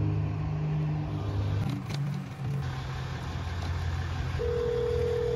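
A motor vehicle engine idling with a steady low hum, its pitch shifting slightly about two seconds in. Near the end a single steady tone sounds for about a second, the ringing tone of an outgoing phone call.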